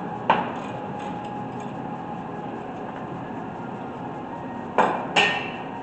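Three sharp metal knocks of hand tools against the brake parts: one just after the start and two in quick succession near the end, over a steady background hum.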